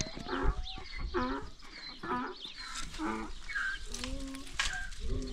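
Chickens clucking in a series of short calls, roughly one or two a second.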